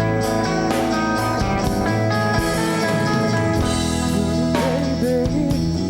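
Pop-rock band playing the instrumental intro of a song live, with guitars and a drum kit, before the vocals come in.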